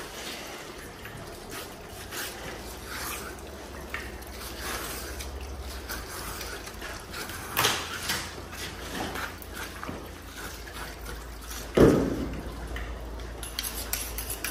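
Knife strokes and tearing as a calf's hide is cut and pulled away from the carcass, a run of short wet-sounding scrapes, with one heavy thump about twelve seconds in.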